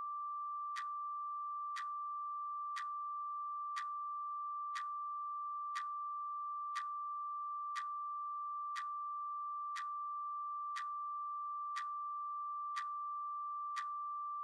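A steady high electronic sine tone with a sharp clock-like tick exactly once a second, both cutting off suddenly at the end.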